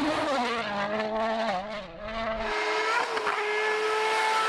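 Rally car engine running at high revs, its pitch rising and falling, then held steady before dropping away near the end.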